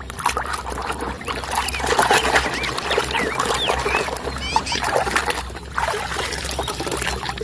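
Water splashing and trickling as a muddy plastic toy vehicle is washed, with scattered clicks and knocks of the toy being handled and a few short, high squeaks.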